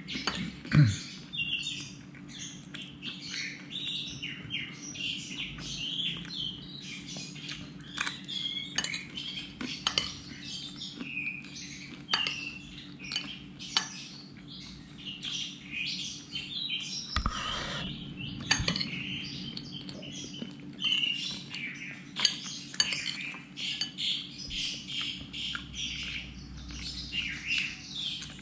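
Small birds chirping busily and continuously, with scattered light clinks of cutlery on dishes and a faint steady hum underneath.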